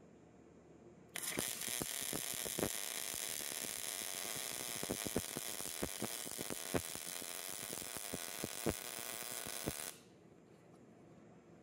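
MIG welding arc laying a bead into a ground-out crack in a metal bracket, filling it with new weld metal. A steady hiss with scattered sharp pops starts suddenly about a second in and cuts off abruptly near the end.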